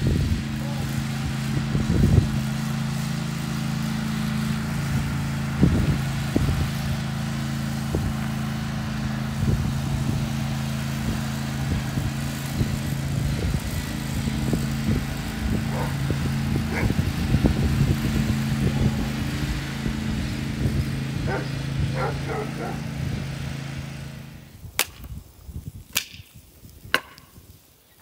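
John Deere riding lawn mower's engine running steadily as it mows, with scattered knocks over the hum. Near the end the engine sound stops and an axe strikes a log three times about a second apart, splitting firewood.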